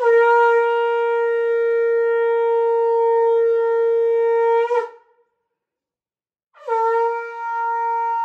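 Conch shell (shankh) blown in two long, steady blasts on one note. The first lasts about five seconds; the second starts about a second and a half after it ends and is still sounding at the end.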